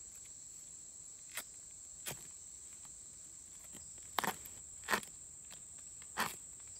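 About five quick, scraping strikes of a ferrocerium rod on a leather survival necklace, struck with a scraper to throw sparks onto fire-starting tinder. A steady, high insect drone runs underneath.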